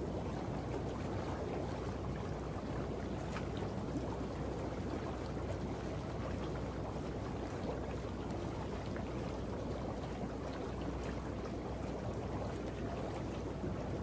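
Water boiling: a steady bubbling with scattered small pops.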